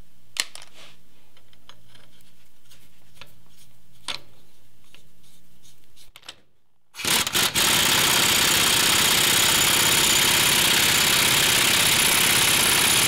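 A few light metal clicks as a socket is fitted onto the lug nut. Then, about seven seconds in, an impact wrench starts hammering steadily, driving a sacrificial lug nut to pull a new knurled wheel stud into the hub.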